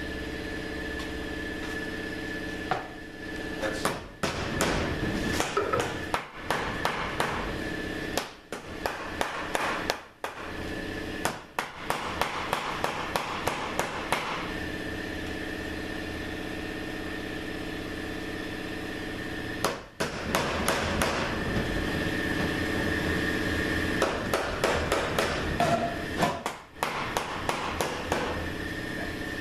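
Metal hand tools knocking and tapping on an Aisin AW450-43LE transmission case in several bursts of quick taps while the front oil pump is being worked loose, over a steady background hum.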